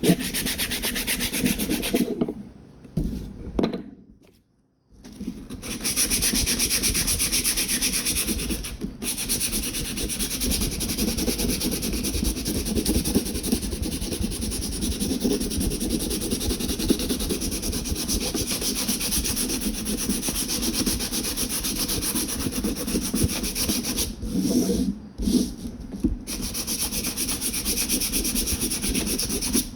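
Handle scales being hand-sanded with coarse 60-grit sandpaper in fast back-and-forth strokes, roughing the surface with deep scratches so epoxy will grip. The sanding stops briefly a few times, with one longer pause a few seconds in.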